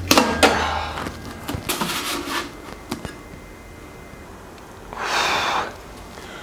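Rustling, scraping and a few knocks as the air-intake snorkel is handled against the underside of the aircraft engine. About five seconds in comes one short breathy exhale.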